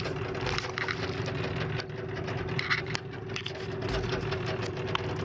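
Steady engine-like hum with scattered clicks and taps, and two short high blips.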